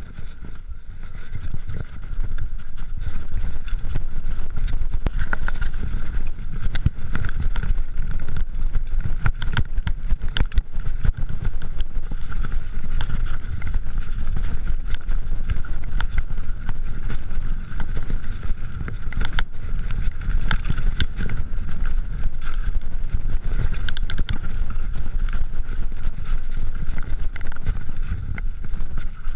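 Mountain bike ridden fast down dirt singletrack: steady low rumble of wind and tyres, with frequent clicks and rattles from the bike over bumps.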